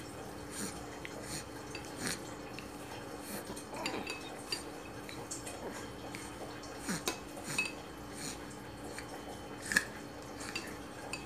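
Metal spoon clinking and scraping against a ceramic soup bowl while stirring thick soup, in scattered light taps, with one louder clink near the end.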